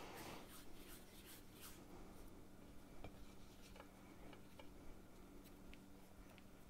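Near silence: faint rubbing and a few light taps of hands shaping soft dough into balls, over a steady low hum.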